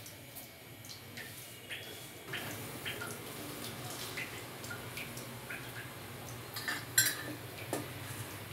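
Flat metal spatula scraping and tapping on an iron tawa as a chapati is flipped and pressed, with scattered light clinks; the sharpest comes about seven seconds in.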